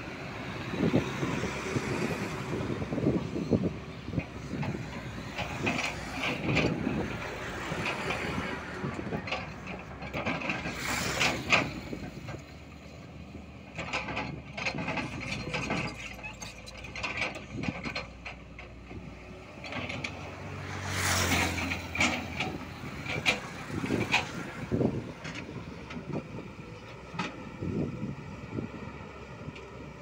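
Tata Hitachi crawler excavator working: its diesel engine running under load with hydraulic whine, and frequent knocks and scrapes as the bucket digs and drops earth. About two-thirds of the way through the engine note swells louder for a couple of seconds.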